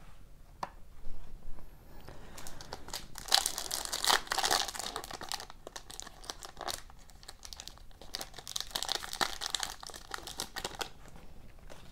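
Foil wrapper of a 2018-19 Upper Deck Ice hockey card pack being torn open and crinkled by hand. The crackling comes in three bouts, loudest about three to four seconds in.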